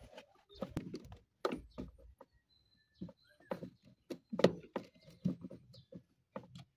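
Plastic parts of a Toyota Vios automatic shift-lever assembly clicking and knocking as they are handled and worked by hand: a string of irregular clicks and taps, the loudest about four and a half seconds in.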